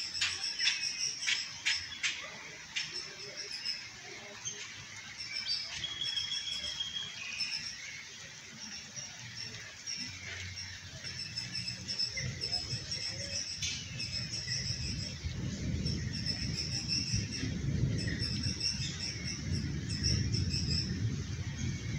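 Birds chirping repeatedly over steady rain. A low rumble comes in about halfway through and continues.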